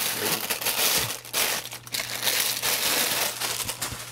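Thin plastic bag crinkling and rustling in the hands as a rifle scope is pulled out of it, noisy and uneven, easing off near the end.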